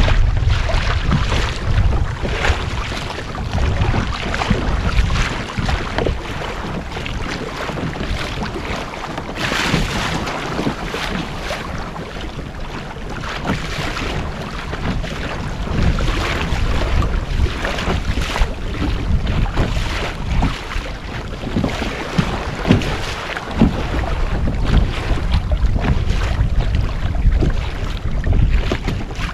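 Water slapping and splashing against the hull of a moving fishing kayak in choppy water, with wind buffeting the microphone in a constant low rumble.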